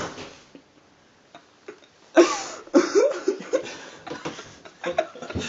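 A few faint clicks, then short bursts of a person's voice without clear words from about two seconds in, with more brief voice sounds near the end.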